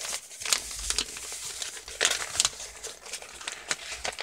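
A sheet of paper rustling and crinkling as it is handled and folded into a paper airplane, in short irregular rustles with a few sharper crackles.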